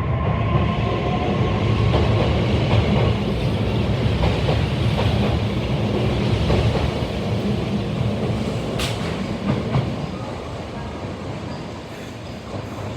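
Kobe Municipal Subway Seishin-Yamate Line train pulling out of the station: a steady low rumble with a few sharp clacks of wheels over rail joints, fading away over the last few seconds as it leaves.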